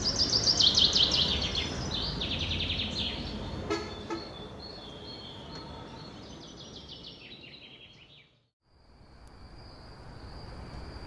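Birds chirping in quick, repeated high trills over a low outdoor rumble, fading out to a moment of silence about eight seconds in. A steady high insect trill, like crickets, then fades in.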